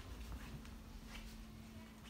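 Faint scuffling of three-week-old basset hound puppies moving about on fleece bedding, with a few soft clicks and a faint steady hum.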